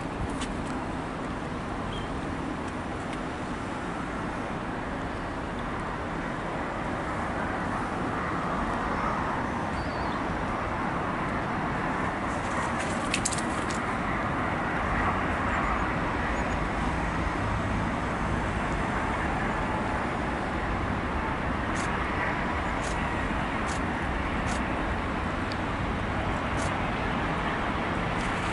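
Boeing 777-200 jet on final approach: a steady, even rumble of its engines that grows a little louder over the first several seconds and then holds, with a few faint clicks in the second half.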